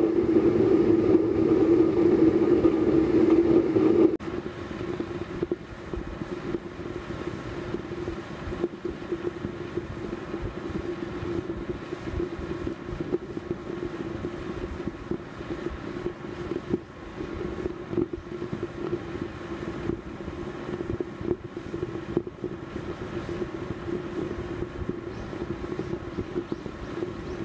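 Small waste-oil stove made from a fire-extinguisher shell, burning with air forced in through a blower pipe: a steady roar with a humming tone. About four seconds in it drops suddenly to a quieter, still steady level.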